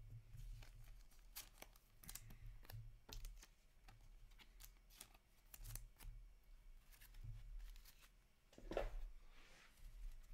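Faint crinkling and tearing of a foil trading-card pack wrapper and the rustle of cards being handled: a string of light scratchy clicks, with one louder rustle near the end.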